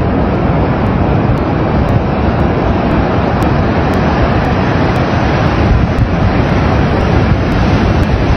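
Steady, loud rushing roar of a tidal bore, a long line of breaking water advancing up a wide river, mixed with wind buffeting the microphone.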